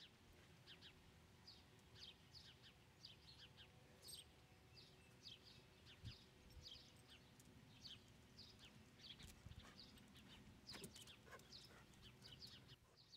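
Faint birdsong: many short, high chirps repeating throughout over a low outdoor rumble, with a couple of soft low thumps near the middle.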